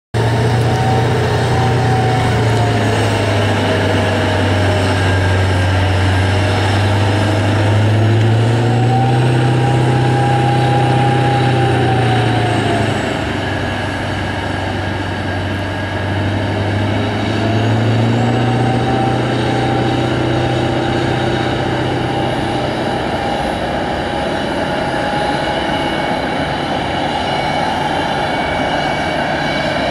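Engine noise on an airport apron during an aircraft pushback: a low engine hum that rises and falls in pitch a few times and fades about two thirds of the way through, over a steady roar.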